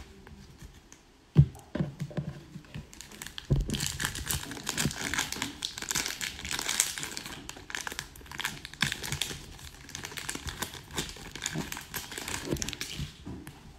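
Foil wrapper of an Upper Deck hockey card pack crinkling as hands work it open and pull the cards out, steady crackling for about nine seconds. It is preceded by two thumps, the louder about a second and a half in.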